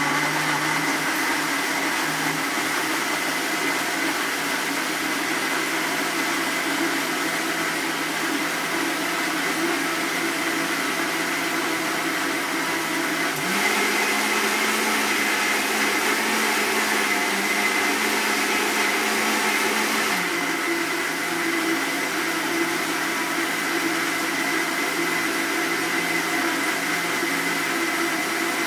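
Countertop jug blender running steadily, blending banana, raspberries and milk into a smoothie. Its motor hum steps up slightly and gets a little louder about halfway through for several seconds, then settles back.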